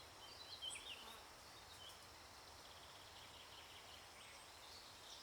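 Near silence: faint outdoor ambience with a few faint high chirps, mostly in the first second and again about two seconds in.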